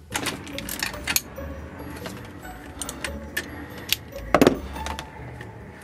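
Metallic clinks and knocks of a ratchet spanner working on the alternator's adjuster bolt and bracket of a marine diesel engine, irregular, with the loudest knock about four and a half seconds in.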